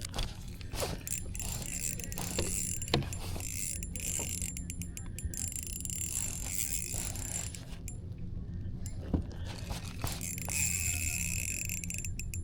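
Fishing reel clicking and ratcheting in rapid runs while a large hooked fish is fought, with a sharp knock about three seconds in and another about nine seconds in.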